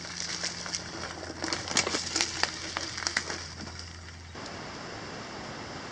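Bicycle tyres rolling over sticks and dry leaf litter on a dirt bush track: a stream of irregular crackles and snaps. The crackling stops abruptly about four seconds in, leaving a steady hiss.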